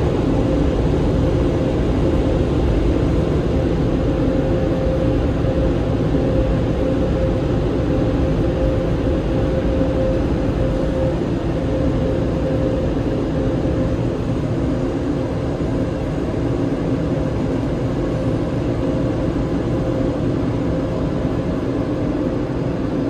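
Tunnel car wash machinery running, a constant drone with a steady hum tone throughout.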